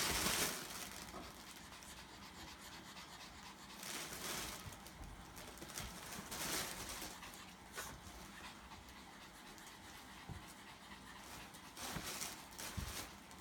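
Small dog panting quietly, in a few short breathy bursts, with the loudest right at the start.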